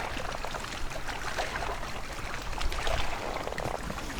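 Water lapping and trickling against a kayak's hull, with small scattered clicks.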